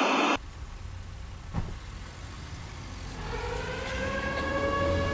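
A burst of TV-static hiss that cuts off suddenly about a third of a second in. After it come a low rumble with a single click, and from about three seconds in a set of faint tones that slowly rise in pitch.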